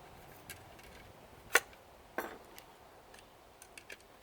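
A few sharp metallic clicks and clinks of hand tools and parts of an electric steam iron being taken apart, the loudest about a second and a half in and another just after two seconds.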